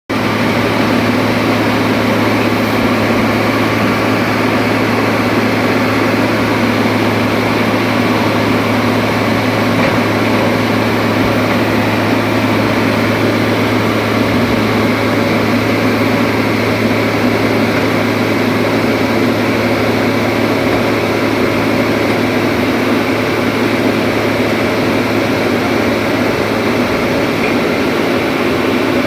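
Excavator's diesel engine running steadily at a constant speed, a loud, even low drone without revving or pauses.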